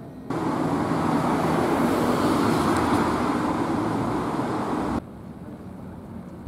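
A loud, steady rushing noise that cuts in abruptly just after the start and cuts out abruptly about five seconds in.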